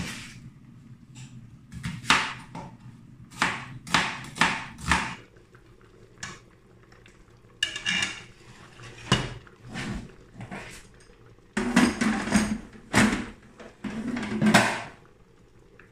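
Irregular kitchen clatter: a chef's knife knocking on a plastic cutting board as an onion is cut, then steel pots and utensils clanking. The knocks come one by one at uneven intervals, with a denser, louder run of clatter in the second half.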